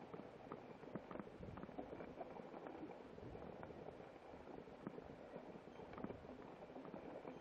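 Mountain bike climbing slowly over loose gravel: quiet crunching of the tyres on small rocks, with many scattered small clicks and rattles.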